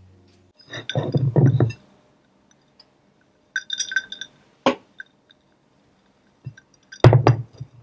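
A glass jar with a metal straw clinking a few times about four seconds in, followed by a single sharp knock. Duller low handling sounds come before and near the end.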